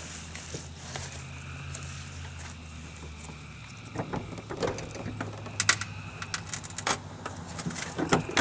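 Metal clicks and knocks as a VW Passat's front door is handled onto its hinges and worked toward its latch. The sharp knocks start about four seconds in, over a steady low hum.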